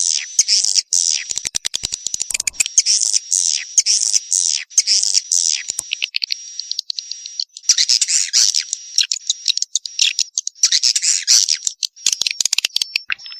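Swiftlet calls, the kind of recorded walet sound played to lure swiftlets into nesting houses: rapid, high chattering chirps mixed with runs of dry clicks over a thin, steady high tone. The chirping pauses briefly in the middle, leaving mostly the tone, then resumes.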